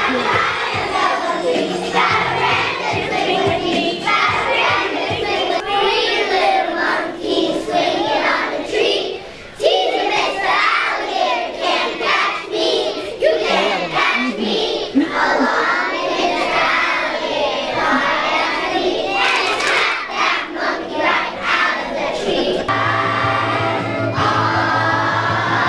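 A group of young children singing together on stage, with musical accompaniment.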